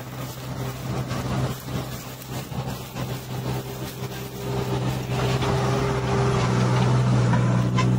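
Farmtrac Atom 26 mini tractor's three-cylinder diesel engine running steadily under load as it hauls a fully loaded sugarcane trolley, growing louder about five seconds in.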